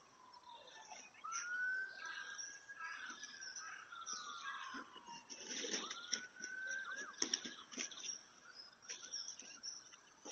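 A siren wailing, its pitch rising quickly and then falling slowly, several times over, with small birds chirping.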